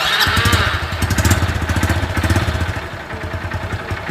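Honda CB110 single-cylinder motorcycle engine starting and running just after its valve clearance has been adjusted. It runs faster and louder for the first couple of seconds, then settles to a lower, steadier idle.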